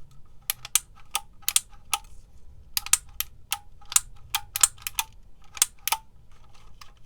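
Handheld squeeze-type label maker clicking as its handle is squeezed and released over and over: a quick, uneven run of sharp clicks, about three a second, some in close pairs.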